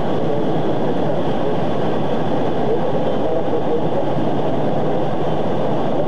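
Steady low rumbling noise that holds at an even level, with no distinct events.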